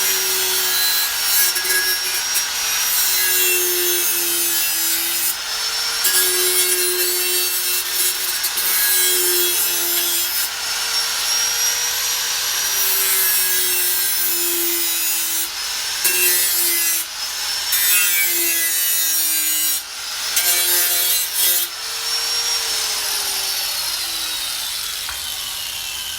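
Power tool cutting through 16-gauge sheet steel, trimming a tab off a shifter riser. The motor's pitch dips each time it bites into the metal and recovers between passes, and it winds down near the end.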